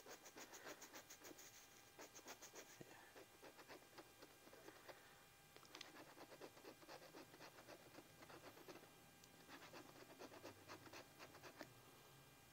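Faint scratching of the coating off a scratch-off lottery ticket, in quick short strokes. It comes in several spells with brief pauses.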